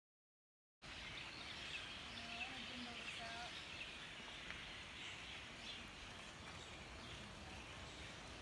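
Faint forest ambience: a steady hiss with a few scattered bird chirps, cutting in suddenly about a second in after dead silence.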